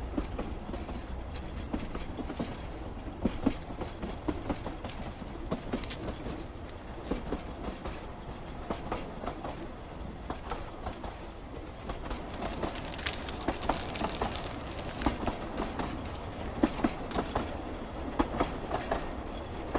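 A train running, heard from inside a wooden passenger compartment: a steady low rumble with scattered clacks and rattles from the carriage.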